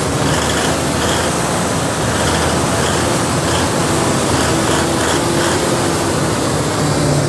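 Perkins diesel generator engine of an 800 kVA set running steadily after an overhaul, a loud, even drone with no change in speed.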